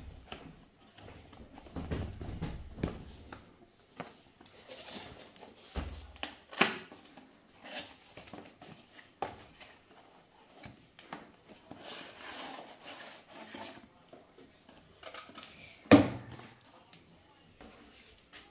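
Cardboard and paperboard packaging being handled: a small retail box opened and moved about inside a cardboard shipping carton, with scattered rustles, scrapes and taps, and one sharp knock near the end.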